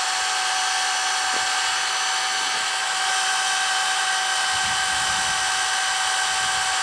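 Half-inch electric drill running steadily at full speed with a high whine, spinning a long length of steel fencing wire chucked in it. The twist this puts into the wire takes the temper out of it and straightens it.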